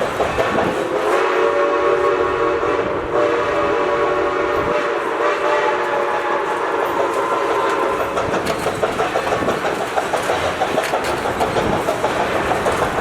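A train's whistle sounds one long blast of several tones from about a second in until about seven seconds in. Throughout, passenger-car wheels clatter rhythmically over the rail joints while the train is under way.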